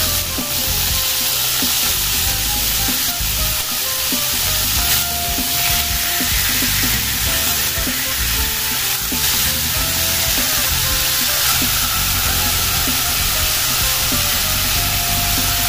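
Marinated pork belly slices sizzling steadily as they sear in oil in a frying pan, with a few light clicks as the pieces are turned over with metal tongs.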